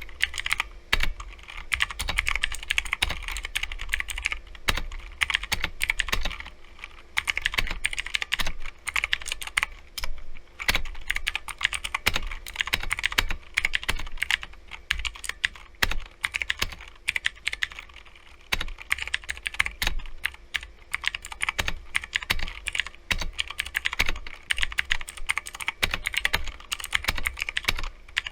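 Fast continuous typing on an E-Yooso Z686 mechanical keyboard with Optimum blue clicky switches: a dense, irregular stream of sharp key clicks.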